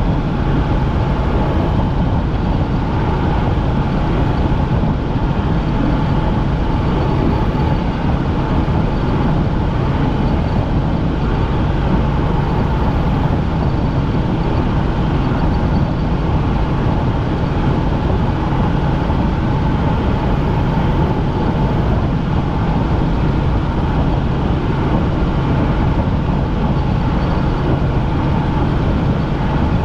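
Helicopter in flight: steady engine and rotor noise with faint steady tones in it, unchanging throughout.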